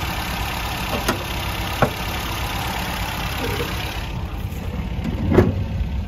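1969 MGB's 1.8-litre four-cylinder engine with twin SU carburettors idling steadily, with a single thump about five seconds in.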